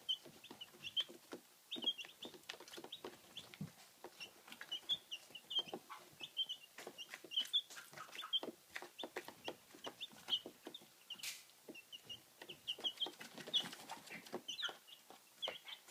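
A brood of chicks peeping, many short high cheeps overlapping throughout, with scattered sharp clicks and rustles among them.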